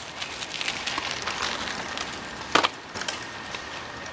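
Mountain bike passing over dry leaves and dirt: a continuous rustle with many small crackling clicks from the tyres, and one sharp knock about two and a half seconds in.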